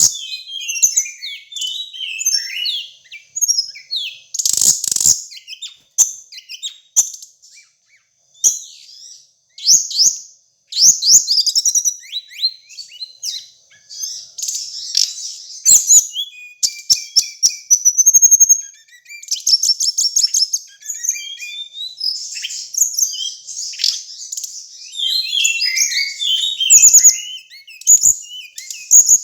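Small songbird, the bird known in Indonesia as suligan or tledekan gunung, singing a long, varied song of rapid high chirps, trills and warbled phrases, with short pauses. A few brief knocks or rustles sound between phrases.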